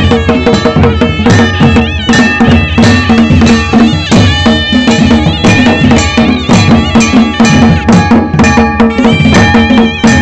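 Traditional Himachali folk music: fast, dense drumming under a high reed wind instrument whose pitch wavers and slides.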